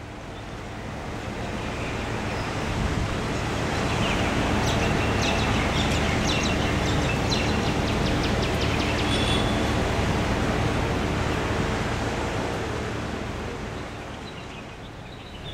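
Heavy rain falling with a steady hiss. It swells over the first few seconds and eases near the end, with a spell of quick ticking from close drops in the middle.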